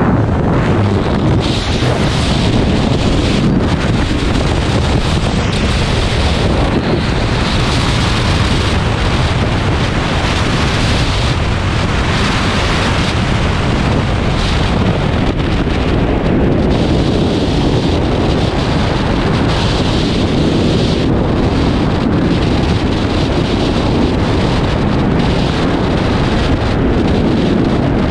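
Loud, steady rush of freefall wind buffeting the microphone.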